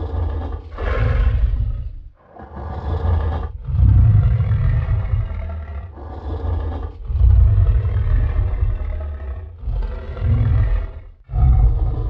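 King Kong giant-ape roar sound effects: a run of about six deep roars and growls, one after another with short breaks, each lasting one to three seconds with a heavy low rumble.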